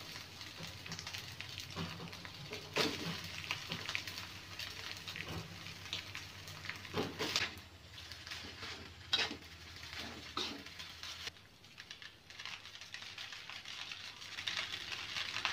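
Rice and scrambled egg sizzling as they fry in a wok, with a few sharp knocks and scrapes of a metal spatula against the pan.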